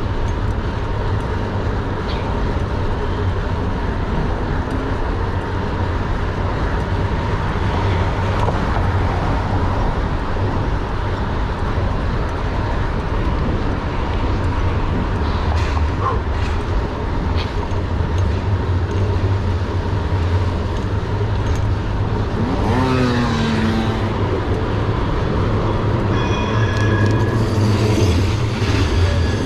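City road traffic rumbling steadily. Near the end a squeal rings out in several high tones at once.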